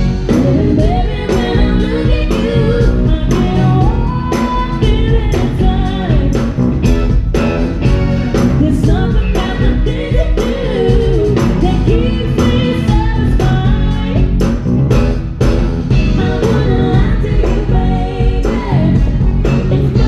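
Live band playing a song with a woman singing lead, over drum kit, electric guitar, bass guitar and keyboards, with a steady beat.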